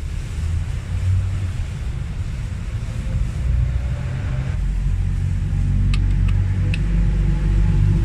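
A steady low rumble, with three light metallic clicks about six to seven seconds in as small parts of the distributor's contact point are handled.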